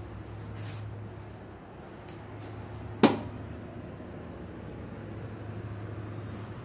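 Steady low hum of the room with a single sharp knock about three seconds in.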